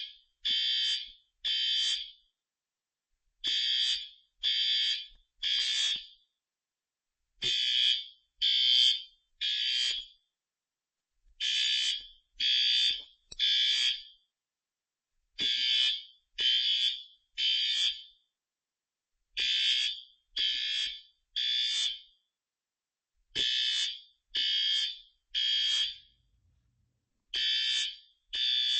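System Sensor P2WL fire alarm horn strobe, set to high volume, sounding the temporal-3 evacuation pattern: three short blasts, a pause, then three more, repeating about every four seconds. The system has been set off by pulling a manual pull station.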